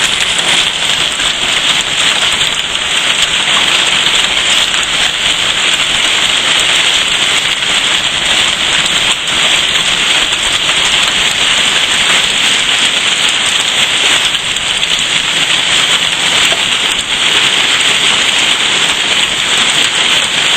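Hailstorm: hailstones about the size of a quarter, some bigger, and heavy rain pelting down in a dense, steady clatter.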